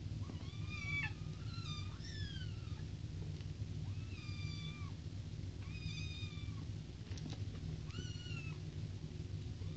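Kittens mewing: about six high-pitched mews, each under a second, several sliding down in pitch, over a steady low hum.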